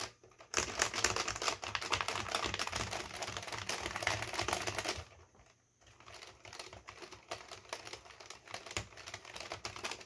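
Typing on an Oki GE 5632H keyboard with linear gourd-spring switches and PBT dye-sub keycaps: rapid, dense keystroke clatter with a somewhat hollow sound. It breaks off about five seconds in and resumes lighter and sparser after a second's pause.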